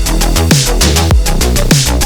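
Electronic dance music with a fast beat, heavy bass and bass drops falling in pitch about twice a second.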